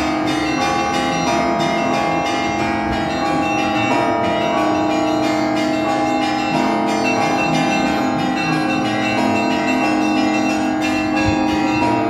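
Church bells in the cathedral belfry ringing a continuous peal. Several bells at different pitches are struck in quick succession, their tones overlapping and ringing on without a break.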